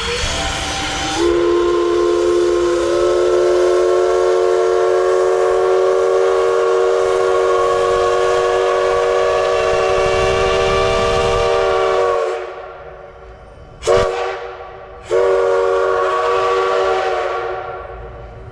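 Steam locomotive whistle sounding a chord of several tones. It opens with a rush of steam and then holds one long blast of about eleven seconds. A short toot follows, then a blast of about two seconds that trails off.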